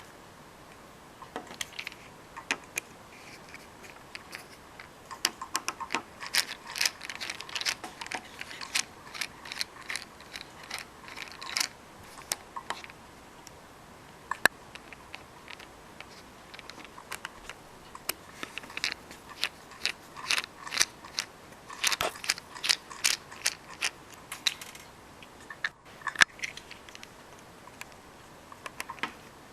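Small screwdriver working the tiny case screws out of a Canon PowerShot SD700 IS compact camera: bursts of rapid, sharp clicking, stopping and starting as each screw is turned.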